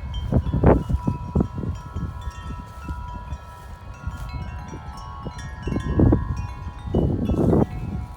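Wind chimes ringing in gusty wind, many overlapping metallic tones struck over and over. Wind rumbles on the microphone, swelling in gusts, the strongest about six seconds in and again just after.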